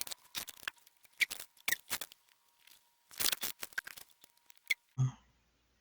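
Multimeter probe tips tapping and scratching on the contact points of a PS4 controller's circuit board, many short sharp clicks, while the meter's continuity beep sounds faintly and steadily, showing a connection, until about five seconds in. A single thump follows as it stops.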